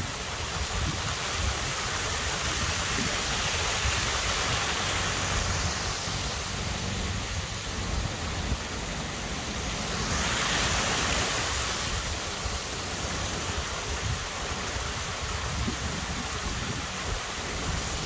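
Steady rush of a small stream pouring over a stone weir, swelling briefly about ten seconds in, with an uneven low flutter of wind on the microphone.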